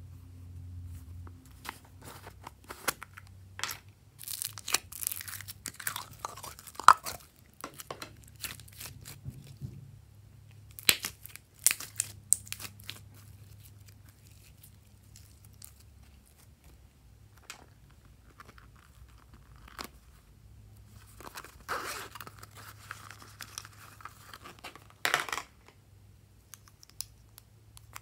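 Slime being stretched and squished by hand, giving irregular crackling and popping clicks, with busier crackly stretches about four to seven seconds in, around eleven seconds, and again near the end.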